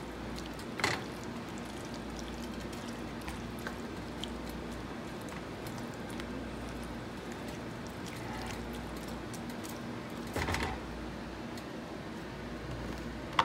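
Tomato, onion and carrot zazharka simmering in a frying pan with a steady low hiss while a silicone spoon stirs it, making wet squishing sounds. Two short knocks of the spoon come about a second in and again about ten seconds in.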